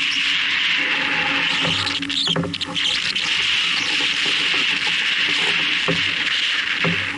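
Water rushing and splashing along a sailboat's hull as it sails, a steady hiss, mixed with wind. There are a few light knocks, about four times.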